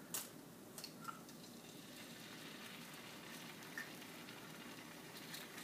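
An egg frying in the hole of a slice of bread on a stovetop griddle: a faint, steady sizzle. A few light clicks come in the first second or so.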